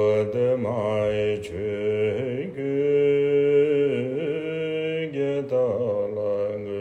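Male voice chanting a Tibetan Buddhist devotional prayer in long held notes that waver and bend in pitch, with a steady low tone beneath.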